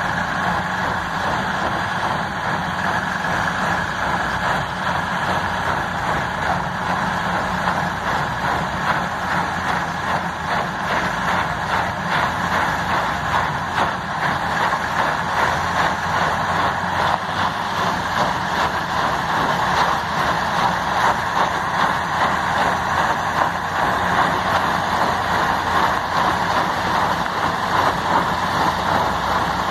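Heavy diesel truck engines running hard in a convoy climbing a steep dirt road: a steady, loud, rough drone under heavy load.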